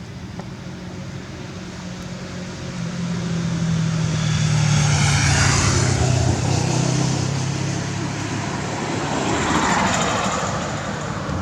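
Motor vehicle engine noise: a steady low hum, with broad traffic noise swelling up about halfway through and again near the end, like vehicles passing.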